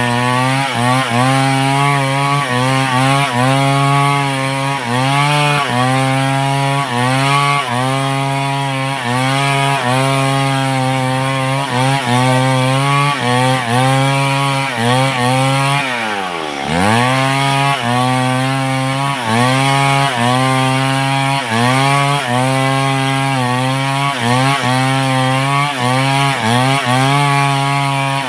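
Large two-stroke chainsaw cutting through wood at full throttle, its engine pitch dipping and recovering about once a second as the chain bites under load. About sixteen seconds in the engine bogs down sharply and then climbs back.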